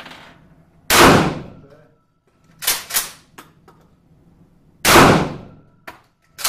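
Two loud, heavy gunshots about four seconds apart, each ringing on in the reverberant indoor range, from a hard-recoiling gun that the shooter has been told to lean into. Fainter, sharper shots from other lanes come between and after them.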